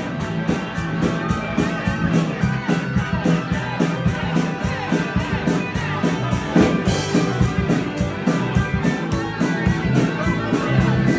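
Rock band playing an instrumental break: a guitar leads over bass and a steady drum beat.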